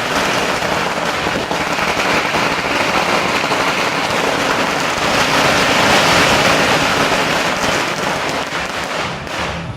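A long string of firecrackers going off in a dense, continuous crackle, easing slightly near the end.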